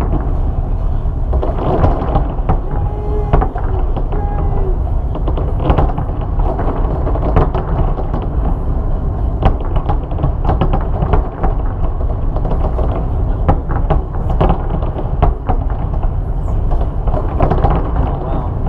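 Large fireworks display: shells bursting in quick succession, with many sharp cracks and bangs over a continuous low rumble, almost without pause.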